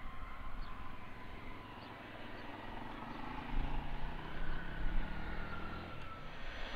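Business jet taxiing: steady jet engine noise with a high whine that drops slightly in pitch, and a low rumble swelling a few seconds in.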